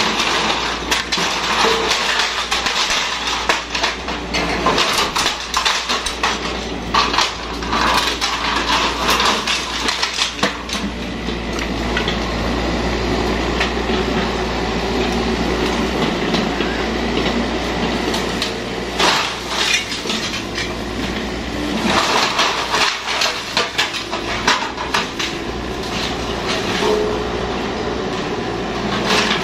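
Yanmar mini excavator's diesel engine running steadily under load, with repeated metallic clanks, knocks and clatter as the bucket tears at a wooden shed and the machine moves on its steel tracks. Heavier bursts of knocking come about 19 seconds in and again a few seconds later.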